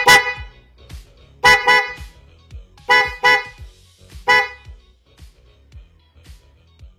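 Newly installed Bosch Evolution dual horn on a Yamaha Mio Sporty scooter being tested: six short, loud toots, mostly in quick pairs, stopping about four and a half seconds in. The horn is working on its new harness.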